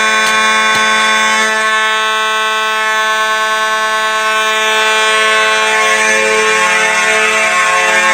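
Two Simplex 4903 mechanical fire alarm horns sounding together in alarm, a loud, continuous buzzy horn tone with a harmonized sound, almost like a ship horn.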